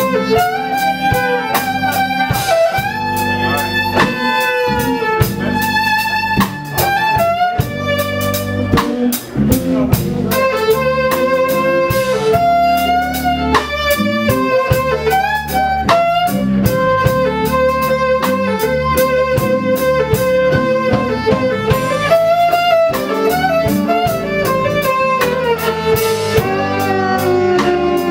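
Live band playing: bowed fiddle melody over electric guitar, electric bass and a drum kit keeping a steady beat.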